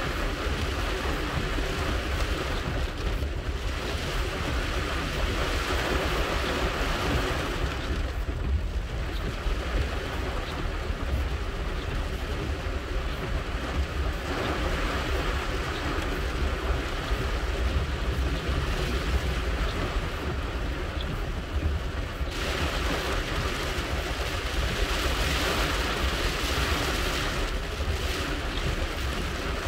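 Heavy rain falling on a car's roof and windshield, heard from inside the cabin, over a steady low rumble of the car driving on a wet road. The rain noise swells and eases in waves every several seconds.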